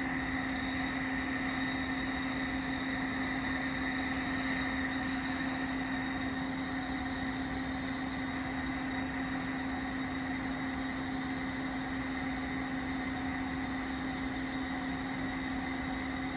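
Kenworth truck's diesel engine idling steadily, with a continuous air hiss from the Bendix air dryer's purge valve, which is still leaking air.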